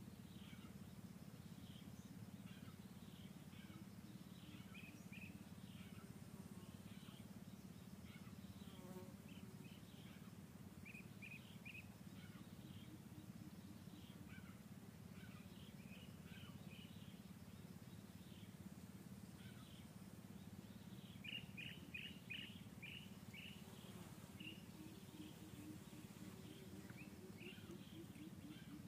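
Near silence: faint outdoor ambience with a steady low hum and scattered high-pitched chirps. A quick run of chirps comes about three quarters of the way through, and faint low repeated notes come near the end.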